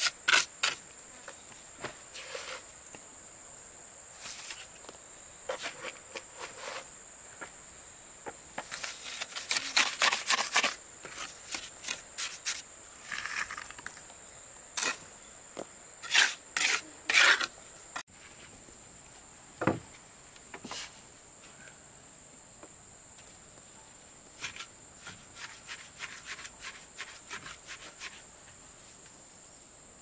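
Steel trowel scraping and tapping cement mortar along the joints of concrete blocks, in clusters of short scrapes and a few knocks. Insects keep up a steady high drone throughout.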